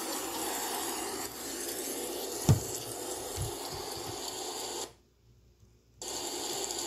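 Recorded snowstorm sound, steady howling wind with a hiss, played through a laptop's small speakers. About two and a half seconds in there is a sharp thump and a few softer knocks, and the sound cuts out for about a second near the end before the hiss resumes.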